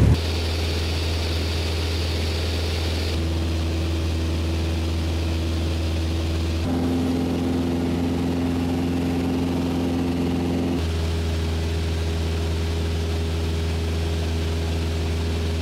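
Mooney M20J's four-cylinder Lycoming engine and propeller running in a steady drone. Its tone shifts abruptly three times, about 3, 7 and 11 seconds in.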